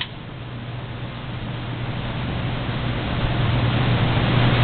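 Steady low mechanical hum with a hiss, slowly growing louder, with a short click right at the start.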